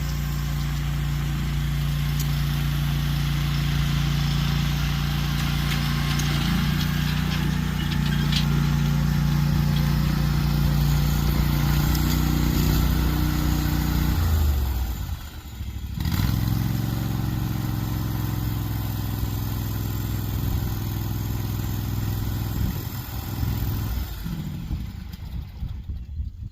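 Garden tractor engine running steadily under load while pulling a disc harrow through garden soil. About halfway through it dips briefly, then runs on, and it gets quieter and uneven near the end.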